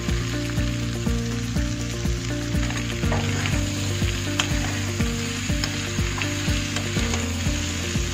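Cauliflower and potato pieces sizzling in hot oil and masala in a metal kadhai, stirred and turned with a steel spoon, with a few sharp clicks of the spoon against the pan.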